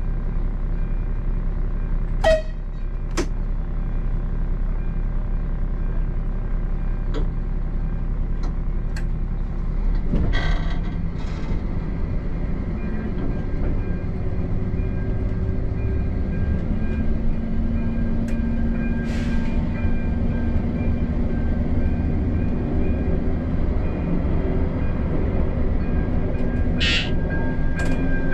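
Train running on the rails: a steady low rumble with a few sharp clicks a couple of seconds in. The rumble grows louder from about ten seconds in, and a steady hum joins it about halfway through.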